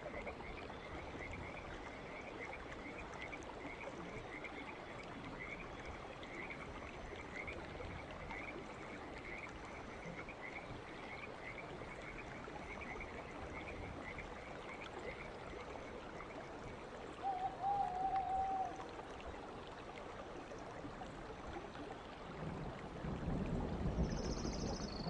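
Frogs calling in a night ambience, one high call repeated roughly once or twice a second and stopping about two-thirds through. A brief warbling tone follows, and a louder low noise builds near the end.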